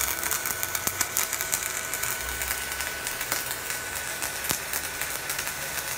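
Stick-welding arc from a 3.2 mm electrode on a YARU MIG-250Y inverter welder in stick mode: a steady, continuous crackle and sizzle full of sharp pops, with a thin steady whistle under it.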